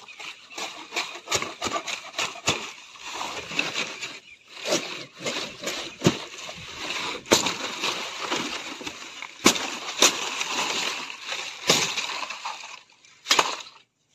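Stiff palmyra palm fronds rustling and crackling as they are pulled and cut with a blade, with several sharp snaps along the way.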